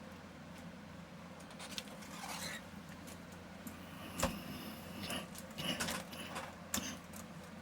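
Hands working on a computer keyboard and its small parts: scattered light clicks and rubbing, scraping noises, with one sharper knock about four seconds in.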